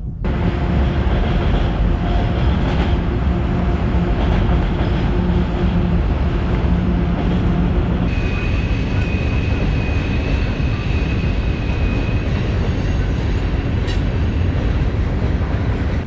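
A boat's motor running under way, a steady engine drone mixed with rushing wind and water noise. A steady high whine joins in about halfway through and fades out a few seconds later.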